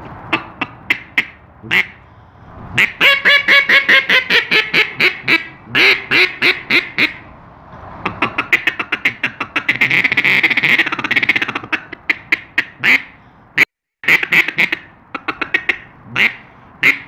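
An acrylic Echo Boss competition duck call blown by mouth, imitating a hen mallard: a long run of quacks, then a fast run of short clipped notes, then more quacks. The caller himself calls the result horrible.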